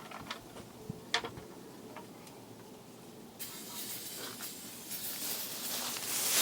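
Aerosol can of brake cleaner spraying: a few sharp clicks, then from about halfway a long steady hiss that grows louder near the end.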